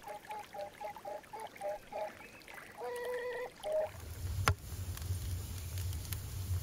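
Domestic waterfowl calling in a quick run of short honks, then two longer calls. About four seconds in, this gives way to a wood fire burning inside a clay tandoor: a low steady rumble with sharp crackles and pops.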